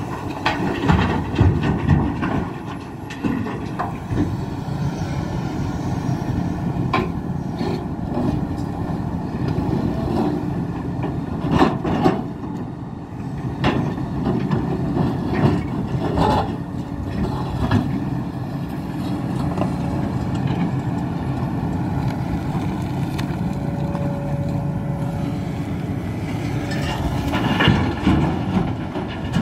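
Hidromek HMK 390LC excavator's diesel engine working steadily under load, broken by repeated sharp knocks and clatters of rock as the bucket digs and loads hard ground, the loudest about twelve seconds in.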